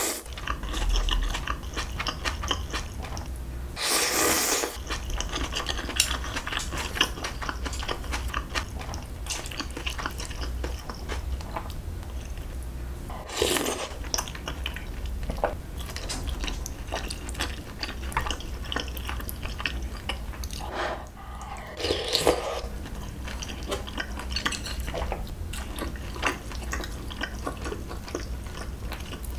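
Close-miked eating of curry ramyeon: noodles slurped in three long pulls spread through, with steady chewing and chopsticks and a spoon clicking against the bowl in between.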